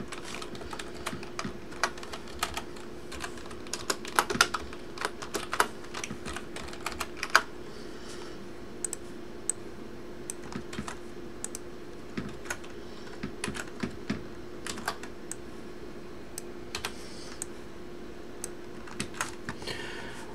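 Typing on a computer keyboard: irregular runs of keystrokes broken by short pauses, over a faint steady hum.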